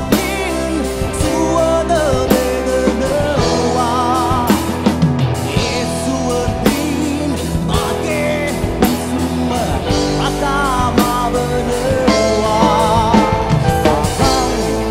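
Live rock band performance of a Sinhala song: a male vocalist singing a melody with vibrato over electric guitar and a drum kit.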